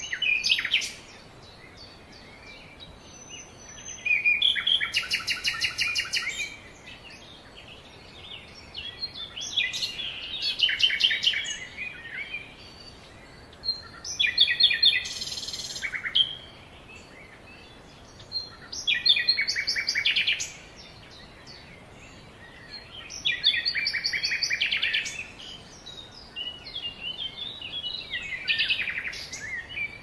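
Songbird singing: short phrases of rapid trills, repeated every four to five seconds, over a faint steady background hiss.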